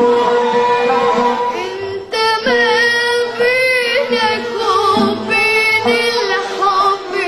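A young girl singing an Arabic song with ornamented, wavering runs over a live band's accompaniment. The band plays alone for about the first two seconds before her voice comes in.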